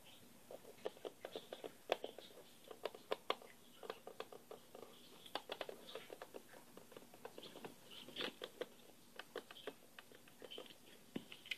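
Fingers tapping on a hard surface: quick, irregular runs of light clicks with short pauses between them, a few sharper than the rest.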